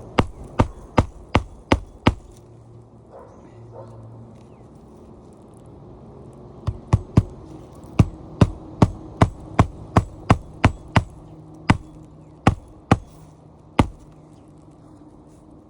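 Hand hammer driving roofing nails into asphalt shingles in quick runs of sharp strikes, with a pause of a few seconds between the first run and a longer, faster one, then a few spaced final blows.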